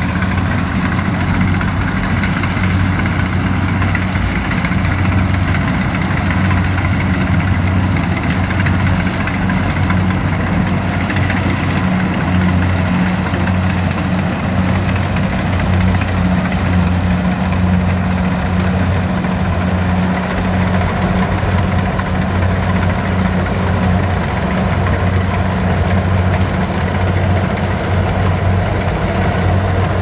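Kubota DC70 combine harvester working through standing rice: its diesel engine runs at a steady, even hum with the cutting and threshing gear turning over.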